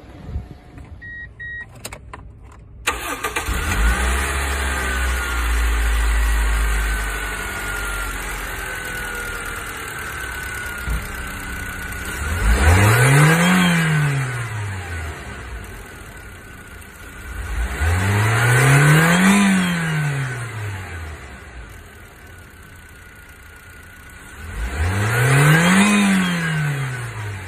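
A short beep about a second in, then a 2004 Toyota Hiace's 1TR 2.0-litre four-cylinder petrol engine starts about three seconds in and settles into an idle, with a whine falling slowly in pitch. The engine is then revved three times, each rev rising and falling over about two seconds.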